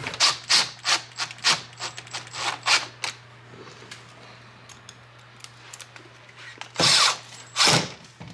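Power drill driving screws: a quick run of short trigger bursts, then two longer bursts near the end.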